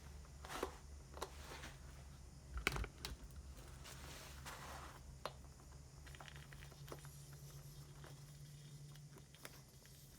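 Faint clicks, small knocks and rustles of hands handling a small wheel's rubber inner tube and tools, over a steady low hum.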